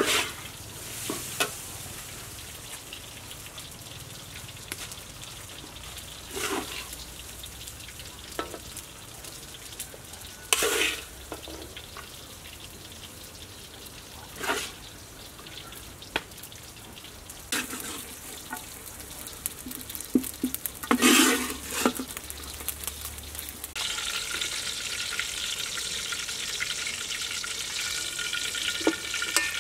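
Fried rice sizzling in a large steel wok, with a long-handled metal ladle scraping and clanking against the pan every few seconds as it is stir-fried and scooped out. A steadier, brighter hiss takes over for the last few seconds.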